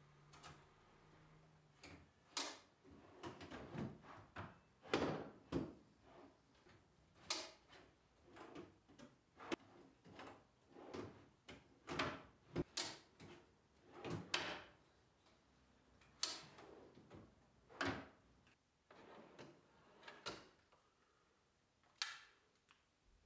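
Drawers being slid in and out of a melamine tool chest on metal drawer slides. It is a string of irregular short sliding runs, each ending in a knock as a drawer shuts.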